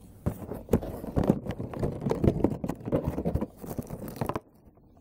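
Stiff clear plastic packaging being handled and opened: irregular crackling and clicking that stops about four and a half seconds in.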